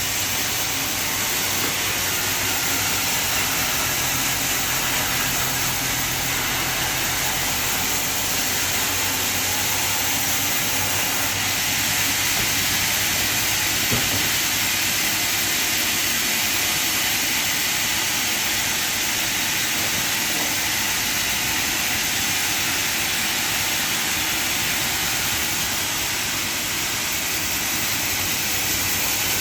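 Band sawmill running and cutting timber, a steady hissing noise that stays even throughout.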